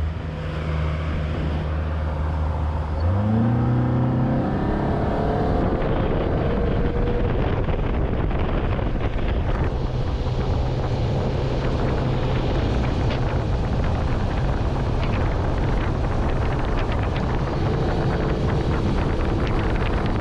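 Outboard motor on an aluminum bass boat throttled up about three seconds in, its pitch rising as the boat gets on plane, then running steadily at speed under loud wind and water rush.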